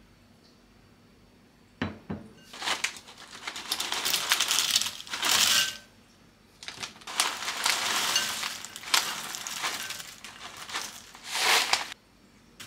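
Two sharp knocks, then puffed caramel corn snacks pour from a crinkly plastic bag into a glass bowl with a dense dry rattling. After a short pause a second long pour follows: caramel popcorn tipped in on top, rustling and crackling until it cuts off abruptly near the end.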